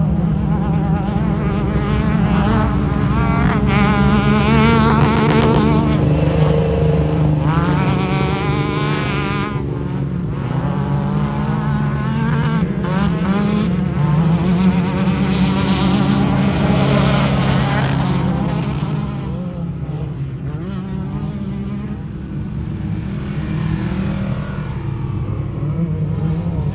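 Off-road race vehicle's engine running hard, its revs rising and falling over and over as it is driven around an infield course, easing off somewhat for a few seconds past the middle.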